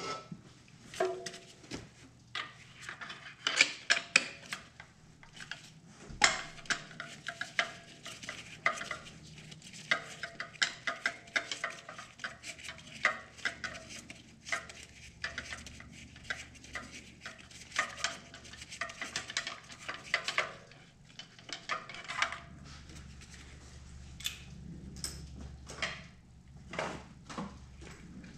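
Hand tools clicking and clinking against metal in a car's engine bay during spark plug work: a long run of quick irregular clicks and rattles, thinning out after about twenty seconds, with a low hum in the last few seconds.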